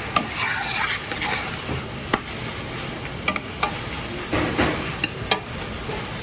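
Minced meat sizzling as it browns in a large stainless steel pot, stirred with a ladle that scrapes through it and knocks sharply against the pot several times.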